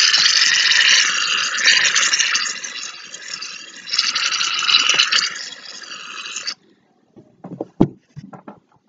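Aerosol can of shaving cream spraying out foam in a long hiss. The hiss eases off a few seconds in, comes back, then cuts off suddenly and is followed by a few soft clicks and taps.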